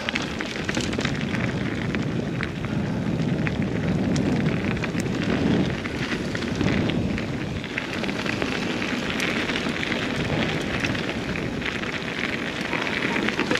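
Mountain bike ridden fast down a rough trail, heard through a GoPro's microphone. Wind on the mic and tyre noise make a constant rush, with many small clicks and knocks from the bike over the ground. The sound cuts off abruptly near the end.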